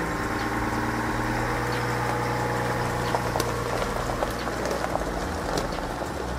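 Chevrolet Silverado pickup truck driving slowly past on gravel: a steady low engine hum, with small pops and crunches of gravel under the tyres.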